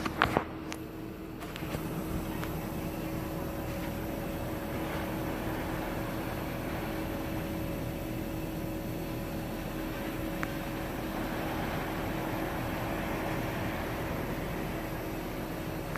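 Steady outdoor background noise: an even rushing hiss with a constant low hum running under it. A few sharp knocks come right at the start as the phone is moved.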